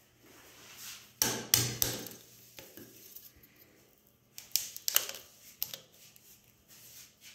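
A frozen ice cream bar knocking against the metal hopper of a meat grinder as it is pushed in and breaks, its hard coating cracking. There is a cluster of sharp knocks and cracks about a second in and another around five seconds in.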